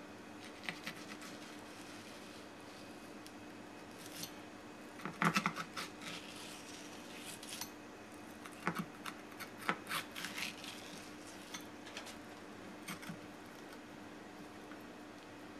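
Kitchen knife cutting meat from a tuna collar on a wooden cutting board, the blade clicking and scraping against the collar bone and board in scattered strokes, busiest about five seconds in and again around ten seconds. A steady low hum runs underneath.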